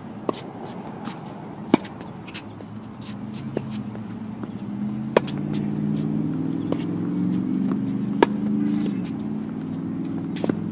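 Tennis rally: sharp pops of the ball being struck by rackets and bouncing on the hard court, one every second or two. Under them runs a low engine hum that grows louder about halfway through and eases off near the end.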